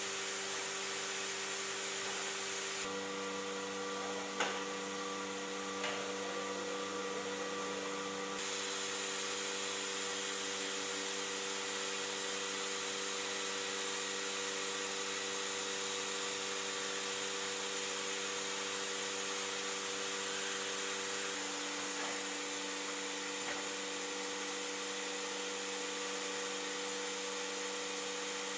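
Leister SeamTek industrial welding machine running steadily: a motor hum over a high hiss. The hum changes pitch about three seconds in and again after about twenty seconds, with a couple of faint clicks early on.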